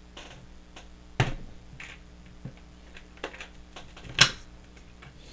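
Plastic Lego bricks clicking and clacking as a Lego brick separator pries at them. There are scattered light clicks and two sharper snaps, one about a second in and the loudest about four seconds in.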